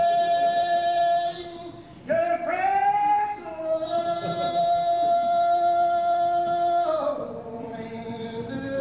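Unaccompanied hymn singing in the slow Old Regular Baptist style, the voices drawing each note out for seconds at a time. The singing breaks off about two seconds in, slides up into a new long-held note, and steps down to a lower note near the end.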